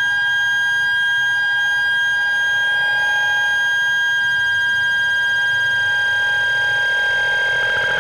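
Modular synthesizer sounding a steady, high electronic drone of several held tones, alarm-like in pitch. Near the end a lower, wavering layer swells in underneath.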